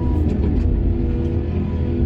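Heavy diesel mining machinery running steadily, a deep rumble with held droning tones above it.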